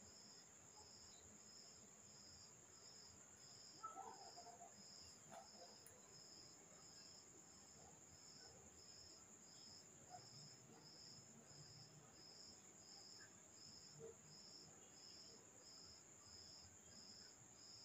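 Near silence: faint room tone with a steady high-pitched whine and a soft high pulse repeating evenly about one and a half times a second.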